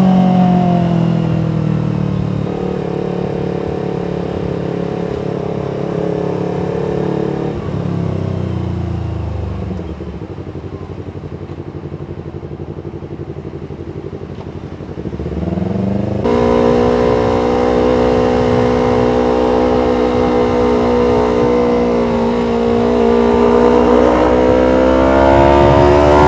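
Yamaha MT-25 parallel-twin engine running through an R9 H2 full-titanium aftermarket exhaust. It drops in pitch as the bike slows and sits at a low, quieter idle for a few seconds, revs briefly, then runs steadily and rises as the bike accelerates near the end.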